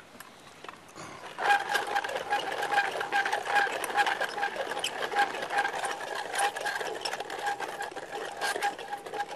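18th-century beech-wood hand-cranked coffee mill grinding roasted dandelion roots: a dense, steady mechanical rattle with a faint steady tone through it. It starts about a second and a half in.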